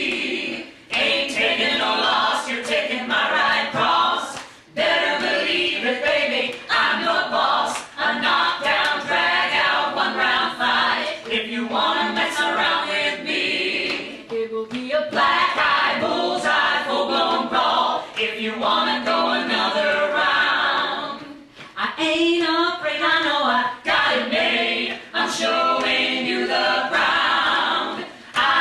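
A small group of singers, women's voices among them, singing a show tune together, with brief breaks between phrases.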